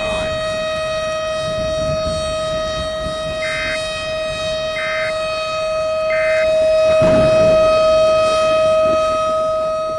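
Outdoor warning siren sounding a steady, unwavering tone, swelling louder about seven seconds in and then fading near the end. Three short, higher beeps sound in a row midway through.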